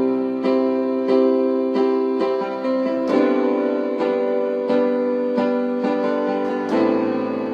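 Keyboard piano playing a slow instrumental intro of sustained chords, with a new chord struck about every two thirds of a second.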